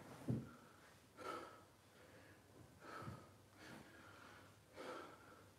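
Faint breathing of a man doing squats: three soft breaths, one about every second and three-quarters, in time with his repetitions. There is a short soft thump just after the start.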